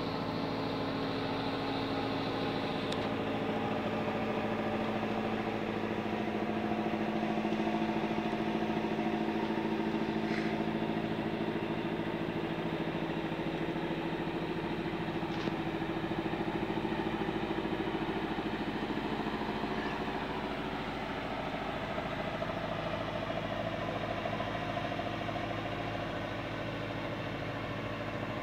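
Boat engine running steadily, a constant droning hum with a slight drift in pitch.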